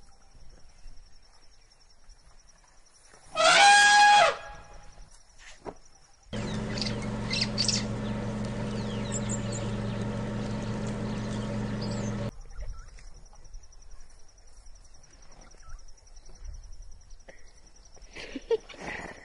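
An elephant trumpets once, loudly, for about a second, about three and a half seconds in, over faint bird chirps and a steady high insect-like chirring. From about six to twelve seconds a steady low hum with hiss starts and stops abruptly.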